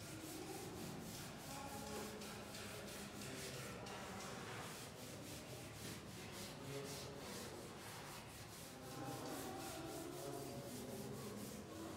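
Chalkboard being wiped clean with a board duster: repeated rubbing strokes of the eraser across the chalk-covered board.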